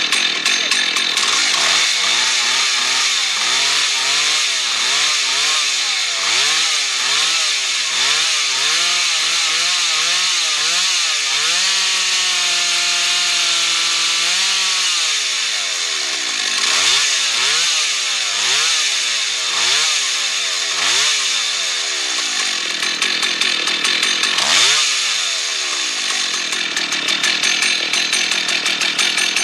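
Rebuilt Husqvarna 1100 two-stroke chainsaw running with its throttle blipped over and over, the engine note rising and falling about once a second. It holds a steady high rev for a couple of seconds near the middle. The saw is being tested while its replacement Husqvarna 395-pattern carburettor is tuned.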